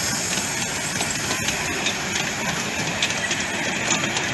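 Miniature steam train rolling past: the carriages' wheels click over the rail joints, under a steady hiss of steam from the locomotive.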